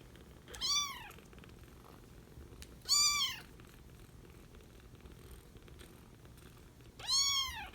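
Young kittens, four to five weeks old, meowing three times, each a short call that rises and falls in pitch, the last one the longest.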